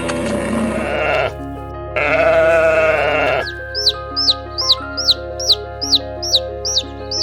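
Two long, wavering bleats from a farm animal over background music, then a run of short, high, falling chirps repeating evenly about two and a half times a second.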